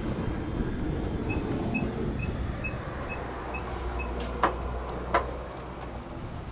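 Minivan's electronic warning beeper sounding eight short, evenly spaced beeps, about two a second, over a low steady rumble, followed by two sharp clicks about a second apart.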